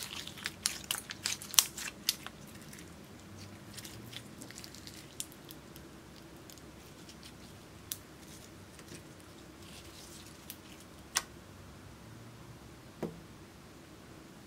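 Orange glitter slime squeezed and stretched by hand, squelching with sharp clicking pops: a quick run of them in the first two seconds or so, then single pops every few seconds. There is a soft knock near the end.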